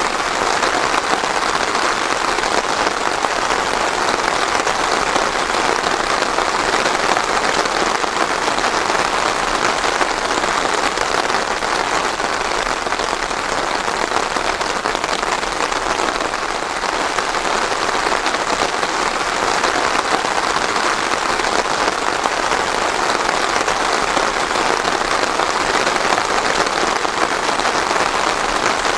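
Steady rain falling and pattering on a surface, with no thunder.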